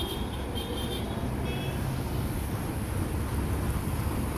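Roadside traffic noise: a steady low rumble of passing vehicles.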